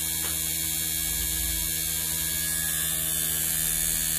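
Inverter air-conditioner compressor running with no refrigerant in it, driven by its control board: a steady electrical hum with a high hiss above it.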